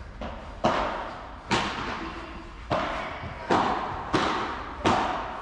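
Padel rally: the ball being struck by solid padel rackets and bouncing, six sharp pops spaced about a second apart, each with a short echo.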